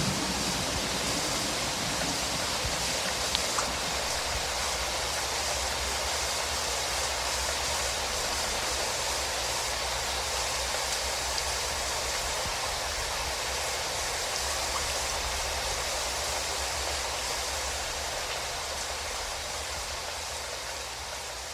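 Steady rush of turbulent river water churning below a dam, with a low steady hum underneath. It fades gradually near the end.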